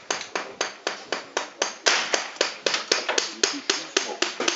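A rapid, even series of sharp taps or knocks, about four a second.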